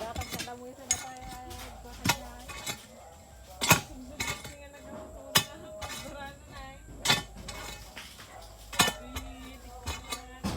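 Hammer blows ringing on metal at a steady pace, about six strong strikes roughly one every second and a half to two seconds, with faint voices between them.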